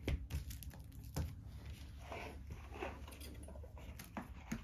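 Cardboard board-game box and components being handled on a wooden table: a few light knocks, the sharpest at the start, about a second in and near the end, with soft rustling and scraping between.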